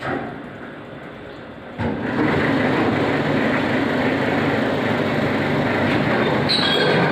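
Sawdust grinder machine running: a steady mechanical din that starts abruptly, steps up louder about two seconds in and then holds even.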